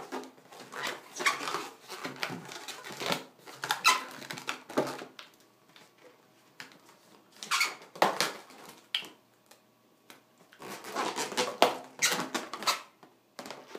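Inflated latex heart balloon squeaking and rubbing under the fingers as a scrap of balloon is tied tightly around its trapped knot. The squeaks come in irregular bursts with short pauses between.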